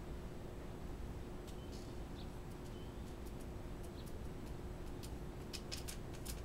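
Steady low electrical hum over background hiss, with a few brief, faint high chirps about two seconds in and a cluster of faint clicks near the end.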